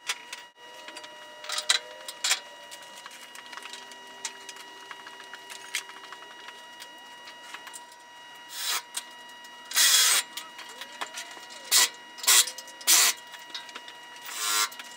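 Several short bursts from a pneumatic tool, most of them in the second half, over a faint steady high hum.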